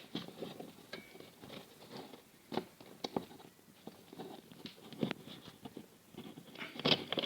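Scattered light clicks and knocks of hands working the lid and brake parts of a washing machine's spin dryer, with a handful of sharper knocks spread through.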